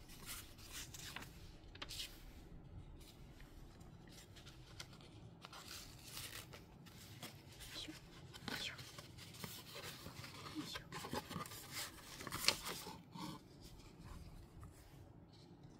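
Faint rustling and scraping as a kraft cardboard box is opened by hand, its flaps folded back and a cloth wrapping slid out. There is a louder rustle about twelve seconds in.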